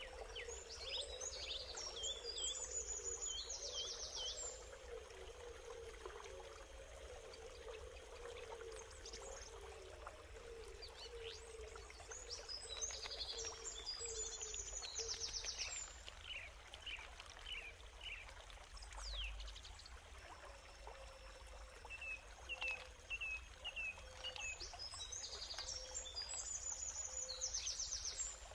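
Water pouring and splashing over snail shells in a wok and into a basket, while a bird sings the same chirping, trilled phrase three times, about twelve seconds apart.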